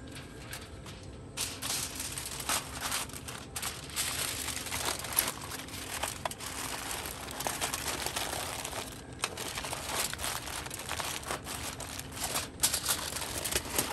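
Aluminum foil crinkling and crumpling as hands fold and press it into a sealed packet around a rack of smoked ribs. It comes in irregular crackling bursts that start about a second and a half in, with a short lull a little past the middle.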